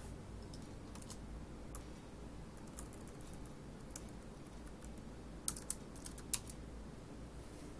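Computer keyboard keys being typed on in scattered single clicks, with a quick run of about four louder clicks about five and a half seconds in.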